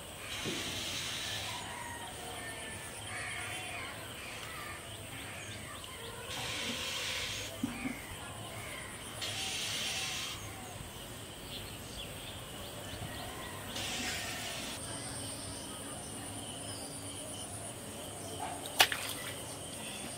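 Outdoor field ambience: insects keep up a steady high trill, broken by four bursts of buzzing about a second long each, with faint bird chirps. A sharp click comes near the end.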